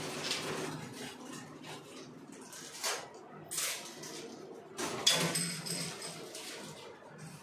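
Low hum under scattered light clinks, knocks and rustles of things being handled in a small room, with the clearest knocks about three and five seconds in.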